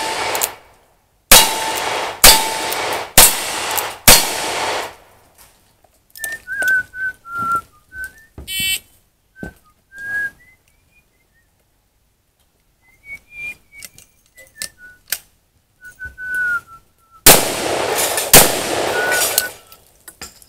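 Single-action revolver fired four times, about one shot a second, each with a short echo. After a pause with small clicks and short high chirping whistles, two louder shots about a second apart from a long gun near the end, each ringing on longer.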